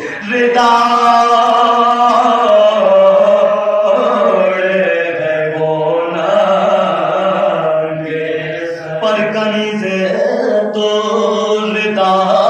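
A group of men chants an Urdu Muharram mourning elegy without instruments. A lead voice is joined by several others in long, wavering held notes, broken by a brief breath pause about nine seconds in.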